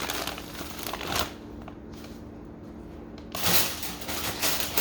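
Plastic bags of frozen vegetables crinkling and rustling as they are handled, with a quieter lull in the middle. A low steady hum runs underneath.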